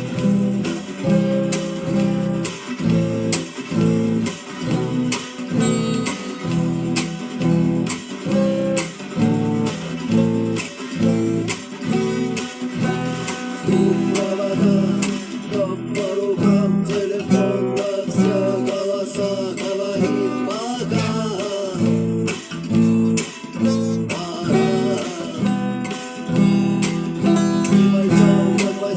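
Acoustic guitar strummed in a steady rhythm, playing the instrumental opening of a song, with one sung word about two-thirds of the way through.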